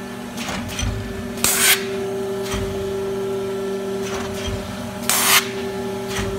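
A PEI vertical cartoning machine running: a steady hum with light clacks every second or two, and two short, loud hisses, about one and a half seconds in and again about five seconds in.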